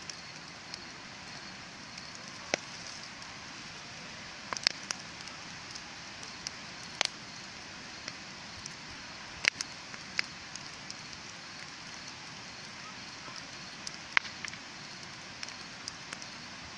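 Wood bonfire burning: a steady hiss broken by sharp, irregular crackles and pops, a few of them much louder than the rest.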